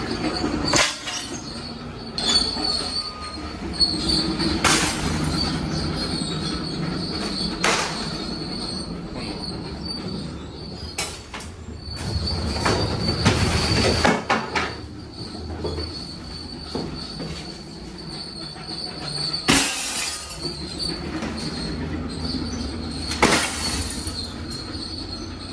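Junk being unloaded at a landfill: a run of crashes and bangs as items are thrown down onto the pile, over a steady rumble with a high, continuous metallic squeal.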